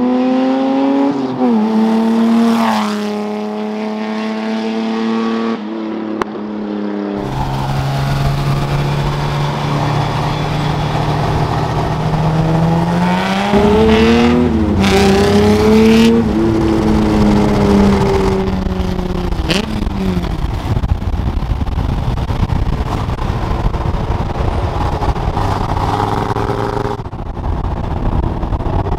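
Custom VW Beetle off-road buggy running through its Black Widow dual exhaust with Neighbor Hater mufflers and an X-pipe, driving hard. The engine note climbs and drops repeatedly as it pulls away and shifts. About a third of the way in it is heard from inside the car, revving up again about halfway through before easing off.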